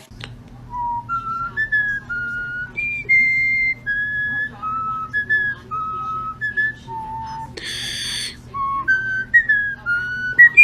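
A tune whistled in clear, held notes that step up and down in pitch, with a short harsh hiss about eight seconds in and a faint steady hum underneath.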